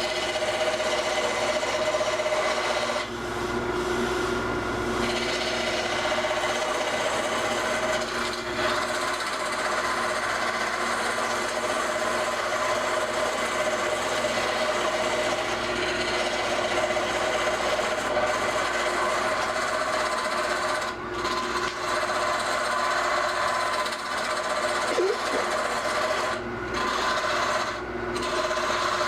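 Wood lathe running while a turning chisel cuts into the spinning wood: a steady scraping, shaving hiss over the lathe's hum, with several brief breaks where the tool lifts off the wood.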